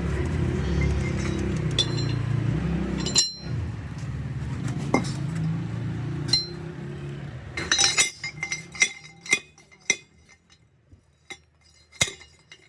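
Metal tools and parts clinking and tapping against each other, over a steady low rumble. About eight seconds in the rumble fades, leaving a quick run of sharp clinks and then a few single taps.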